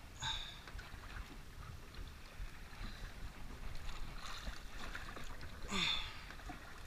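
Wind buffeting the microphone and water against a small outrigger boat on open sea, a steady low rumble. Two short higher-pitched sounds stand out, one just after the start and a louder one near the end.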